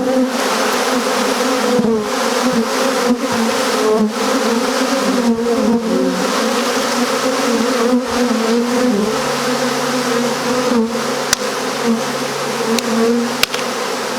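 A swarm of honeybees buzzing loudly in flight, many wings at once in a steady drone that wavers in pitch, with a few faint clicks in the second half.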